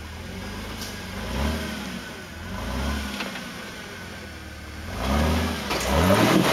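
Jeep Wrangler Rubicon's engine revved in short bursts under load while rock crawling, each burst rising and falling in pitch, the strongest coming near the end, with a few sharp knocks at the end.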